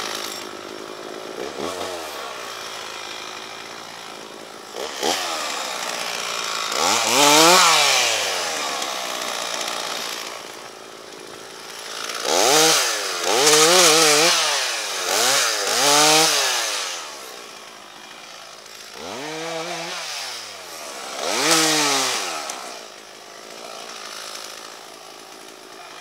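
Two-stroke chainsaw revved again and again, the engine note climbing and falling with each throttle surge: single revs early on, the loudest about seven seconds in, a quick run of four in the middle and two more near the end, with the engine dropping back low in between.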